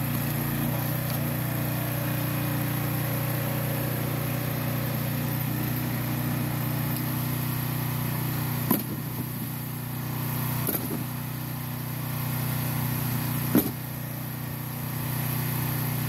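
Small gas engine of a log splitter running steadily, with three sharp cracks of logs splitting. After each crack the engine's sound dips briefly as it takes the load.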